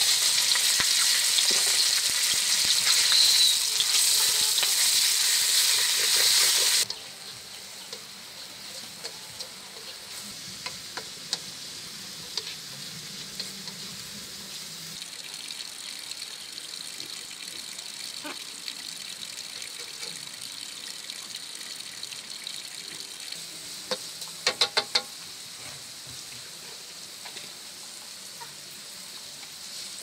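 Food sizzling in a hot pan: a loud hiss for about the first seven seconds that stops suddenly, then a quieter steady sizzle with scattered light clicks and a few sharp knocks near the end.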